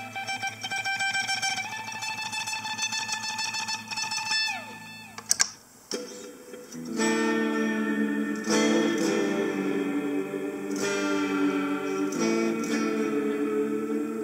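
Electric guitar played through a Harley Benton DNAfx GiT multi-effects processor: held notes, then a falling pitch glide and two sharp clicks about five seconds in. After a short lull, strummed chords on a different tone start about seven seconds in.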